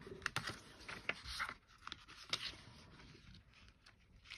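Faint rustling of a Hobonichi Weeks planner's thin paper pages being leafed through, with a few soft scrapes and ticks scattered through it.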